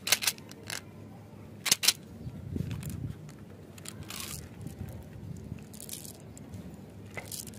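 Sharp plastic clicks as the cap of an umbrella-shaped plastic candy tube is worked open, several in the first two seconds. Then softer rustling and rattling as the jelly beans slide out of the tube into a cupped hand.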